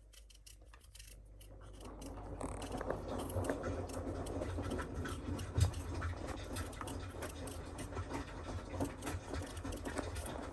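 Hand peeler scraping the skin off small potatoes: a quick, continuous run of short scratchy strokes, sparse at first and then steady, with one louder knock a little past halfway.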